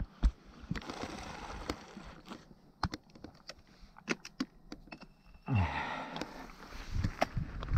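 Mountain bike ridden over a dirt trail: scattered sharp clicks and rattles from the bike over a rushing noise, which gets louder about two-thirds of the way in.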